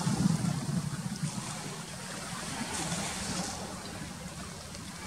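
Wind rumbling on the microphone over the hiss of lake water, loudest at the start and easing off after about two seconds.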